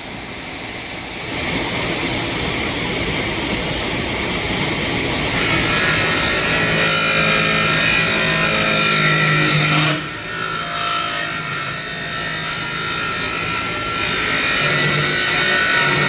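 Electric motor whirring with rushing air and a low hum. It gets louder about a second and a half in and again about five seconds in, drops near ten seconds, and rises again near fourteen seconds.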